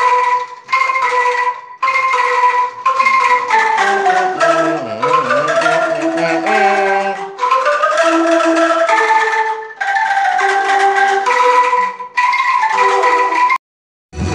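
Traditional Sundanese ensemble music led by tuned mallet-struck percussion playing a melody. In the middle a wavering, gliding line rises over the struck notes. The music breaks off sharply several times and cuts out fully near the end.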